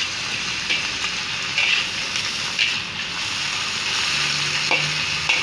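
Tofu and vegetables sizzling steadily in a hot wok, with a metal spatula scraping the pan now and then as they are stir-fried.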